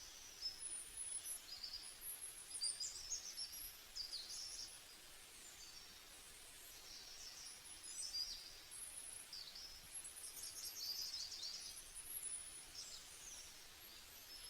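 Small birds chirping and singing: many quick, high, overlapping trills and twitters over a faint hiss.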